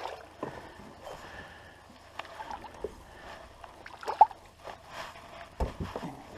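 Shallow water sloshing and splashing softly as a person wades through it, with scattered small knocks and one louder low thump near the end.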